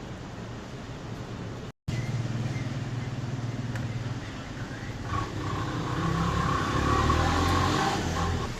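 A car running with a steady low hum, which cuts out briefly a little under two seconds in and grows louder from about five seconds in.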